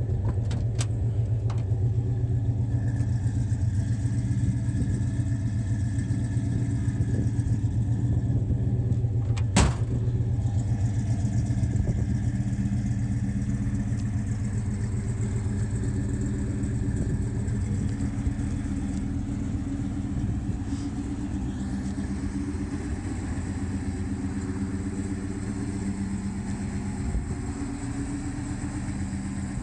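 1972 Chevrolet El Camino SS's 454 big-block V8 idling steadily through its exhaust, with one sharp click about ten seconds in. It grows a little quieter in the last third.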